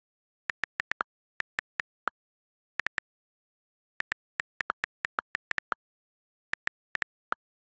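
iPad on-screen keyboard key clicks as text is typed: about two dozen short ticks in uneven bursts with dead silence between, a few of them (the space bar) a little lower in pitch.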